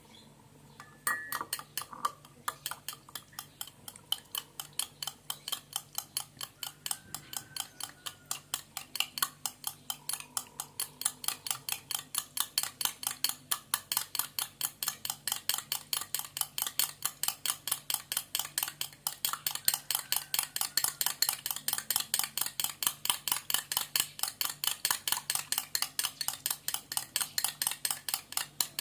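A spoon stirring briskly in a small cup, clinking against the side about three to four times a second, mixing medicine into hot water.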